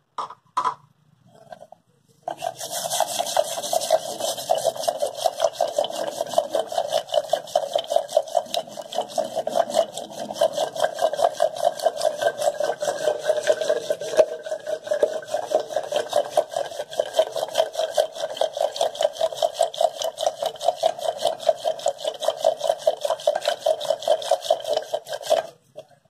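Wooden ravi (hand churner) twirled back and forth in a steel bowl of curd, giving a fast, even rhythm of rubbing, swishing strokes against the metal as the added sugar is churned in. It starts about two seconds in and stops just before the end.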